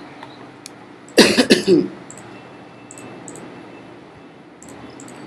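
A man coughs, one short harsh cough about a second in.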